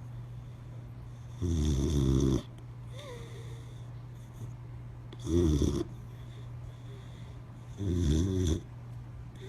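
Boxer dog snoring in its sleep: three loud snores, each under a second long, about three seconds apart.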